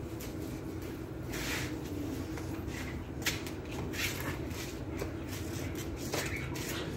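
A Fila Brasileiro puppy tugging and scrabbling at a rope leash on a concrete floor: irregular short scuffles and scrapes, with a sharp knock about three seconds in.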